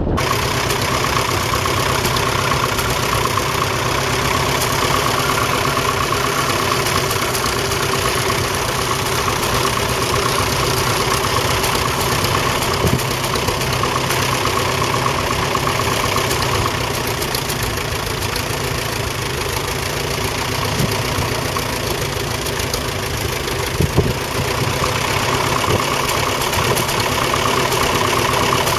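1942 Fordson Model N's 4.4-litre four-cylinder petrol/TVO engine running steadily, with one sharp knock a few seconds before the end.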